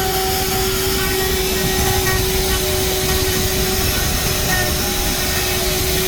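A power tool running steadily: an even rushing noise with a steady hum under it.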